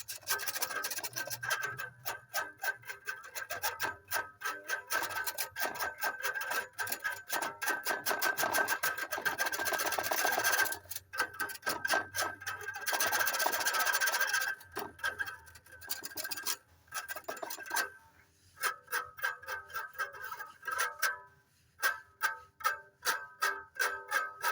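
A plucked string instrument played with fast, repeated picking on a few sustained notes, thinning to separate plucks with short pauses in the last third.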